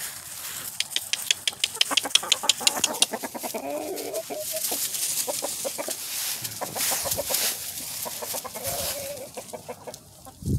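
A flock of backyard chickens clucking and calling as they move about, with a quick series of sharp clicks about one to three seconds in.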